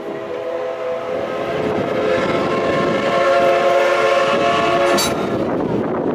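Whistle of the C57 180 steam locomotive sounding one long blast of several notes at once. It swells a little halfway through and cuts off sharply about five seconds in.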